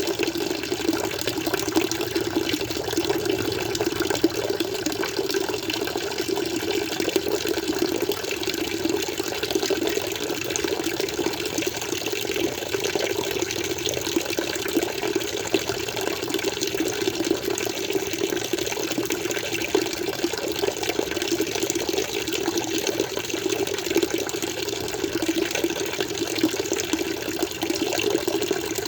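Water flowing and splashing steadily, an even unbroken rush with no change in its course.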